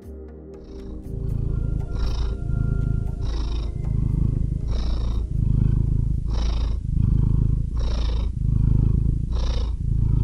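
A cat purring close up, in regular breath cycles about every one and a half seconds, each with a breathy hiss. A music track fades out in the first second.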